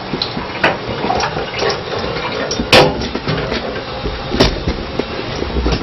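Steady rush of water in a kitchen, with a few sharp clicks and clanks of utensils, the loudest about three seconds in.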